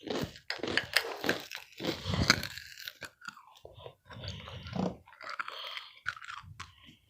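Crisp rice crackers being bitten and chewed, in uneven runs of crunching with short pauses between.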